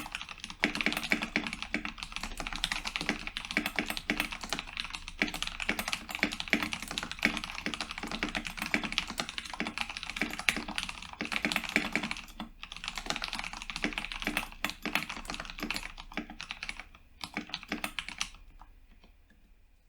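Steady, fast typing on a modded Cooler Master MasterKeys Pro S mechanical keyboard with tactile Cherry MX Brown switches: a dense run of key clacks. There is a brief pause past the middle, and the keystrokes thin out and stop shortly before the end.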